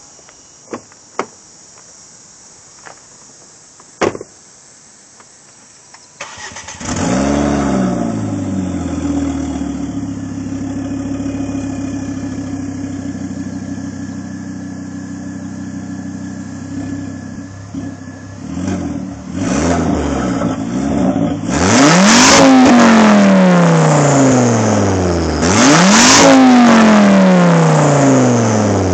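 A car door opening and shutting, then a Volvo C30 T5's turbocharged five-cylinder engine starts about six seconds in and idles, running as an open turbo because the downpipe has come apart at the turbo flange. After a few small blips, it is revved hard twice near the end, each rev climbing and then falling back to idle.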